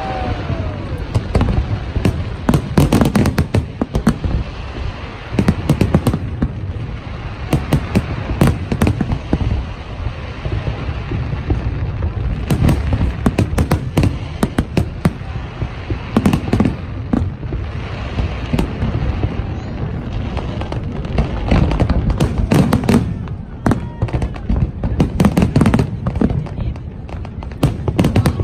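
Fireworks display: aerial shells bursting in rapid succession, a continuous run of booms and crackling over a steady low rumble, with heavier volleys every few seconds.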